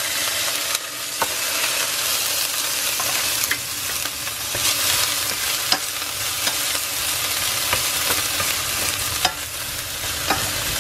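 Diced red onion sizzling steadily in hot olive oil in a stainless steel pan, stirred with a wooden spatula that clicks now and then against the pan.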